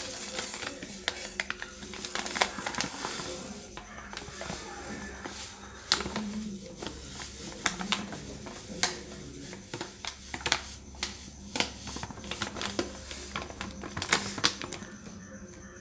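Irregular light clicks and taps on a steel bowl as rice flour for puttu is poured into it, over a low steady background hiss.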